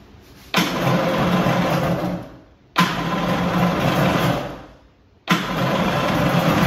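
Kawasaki JS440 two-stroke jet ski engine being started three times. The first two runs each fade out after about two seconds, and the third keeps running at the end. The carburettor's mixture needle has just been set a little rich.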